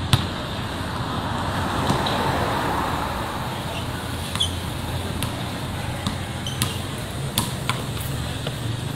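A basketball bouncing on a concrete court, heard as scattered sharp knocks at irregular intervals over a steady background traffic hum.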